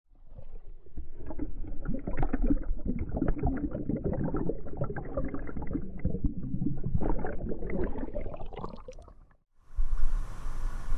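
River water gurgling and bubbling, heard muffled with the camera held underwater as a trout is released by hand. About a second before the end the camera breaks the surface, and a brighter hiss of moving water and wind on the microphone takes over.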